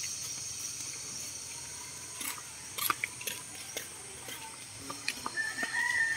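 Scattered light clicks and rustles of people walking, with a plastic bag swinging. About five seconds in, a rooster crows faintly in one drawn-out call.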